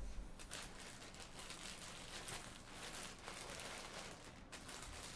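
Faint rustling and handling noises.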